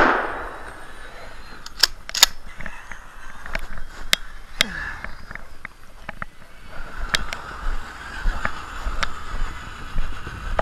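The tail of a 12-gauge Remington 870 pump shotgun blast dying away at the start, followed by a few scattered sharp clicks. A steady whine sets in about two-thirds of the way through.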